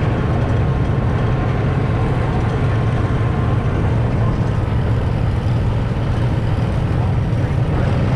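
Old tractor engine running steadily as the tractor is driven along, heard from the driver's seat as a constant low drone.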